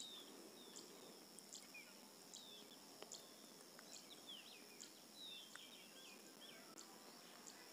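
Near silence: faint background hiss with a few soft, short high chirps and scattered faint ticks.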